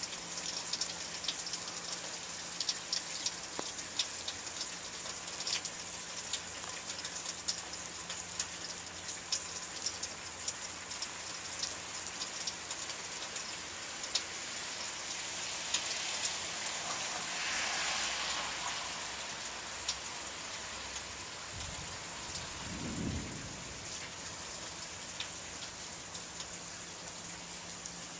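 Steady rain falling, with sharp drips ticking on nearby surfaces and a swell of heavier rain partway through; a short low rumble of thunder comes near the end.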